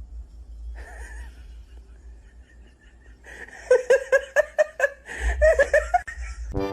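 A person laughing in fast repeated bursts, starting a little past halfway, with a second run of laughter soon after.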